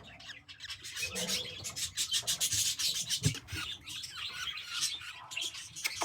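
Scratchy rustling of a young budgie being handled, with quick clicks and scrapes and a few budgie chirps.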